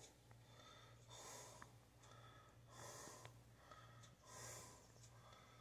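Near silence: soft breathing close to the microphone, a slow breath about every second and a half, over a low steady hum.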